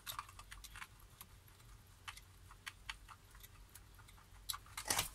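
Hand screwdriver turning a screw into a plastic wall switch: faint, irregular light clicks and ticks, with a few louder clicks near the end.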